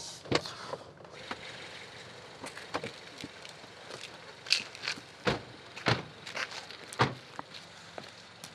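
Doors of a BMW sedan opening and slamming shut: several sharp thuds spread over the seconds, with lighter footsteps on wet concrete between them.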